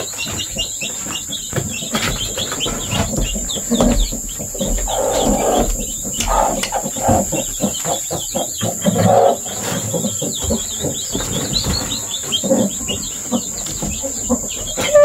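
Many newly hatched chicks peeping in quick, high chirps.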